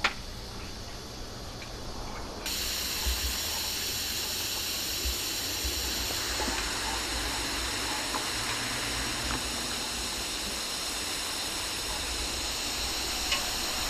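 Air hissing steadily out of a police car tyre punctured by road spikes. The hiss starts abruptly about two and a half seconds in.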